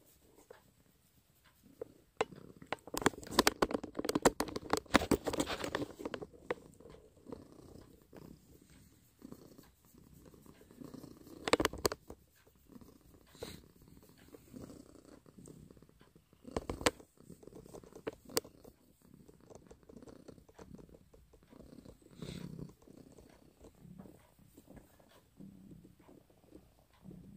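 Domestic cat purring close to the microphone, loudest a few seconds in and quieter after, with a few sharp clicks or knocks later on.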